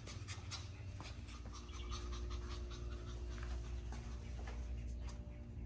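Shih Tzu puppy panting in quick short breaths as it trots about on a tile floor, over a steady low hum.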